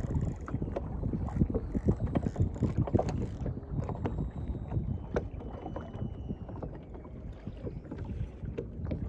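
Wind buffeting the microphone over water lapping against a small boat's hull, with irregular knocks and clicks.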